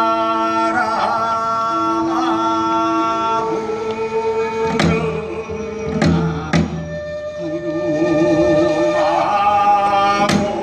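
Live Korean folk song performance: a male pansori-style singer holding long notes with a wide vibrato, over long held notes on a transverse bamboo flute. A barrel drum (buk) is struck four times, about halfway through and again near the end.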